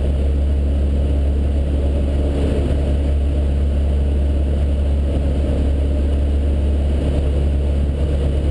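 Cessna 152's four-cylinder piston engine and propeller droning steadily, heard inside the small cockpit in flight.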